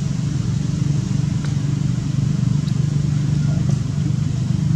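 A steady low engine drone, like a motor running at idle, with a fast flutter.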